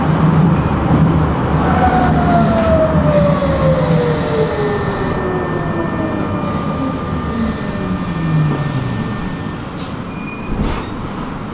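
Tram running on rails with a steady rumble. Its electric traction drive whines in one long tone that falls smoothly in pitch over several seconds as the tram slows. A short sharp knock comes near the end.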